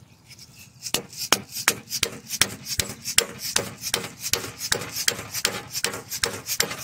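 Orange soft-faced mallet tapping a steel grease cap onto a wagon wheel hub, seating it over the freshly packed bearings. Quick, even taps start about a second in, roughly three a second.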